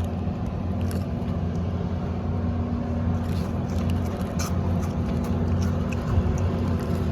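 Small boat outboard motor running steadily at a constant speed, a low even drone.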